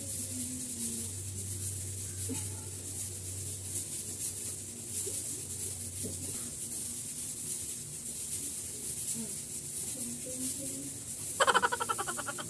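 Domestic fowl calling in the background: faint calls throughout, then a loud, rapidly pulsing call about a second before the end.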